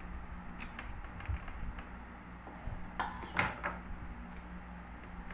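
Small screws being set into the plastic underside of a router case as the case is handled: light clicks and taps, with a short creaking scrape of plastic about three seconds in.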